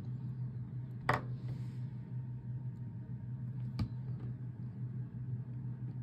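Two sharp taps from craft supplies being handled on a desk, one about a second in and one near four seconds, over a steady low hum.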